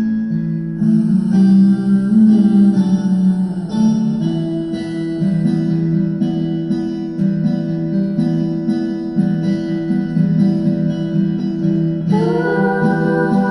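Acoustic guitar strumming chords in an instrumental break of a song. A singing voice comes in near the end.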